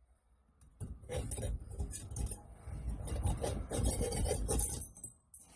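Rough hand scraping and rubbing with many small clicks, which starts about a second in and stops shortly before the end.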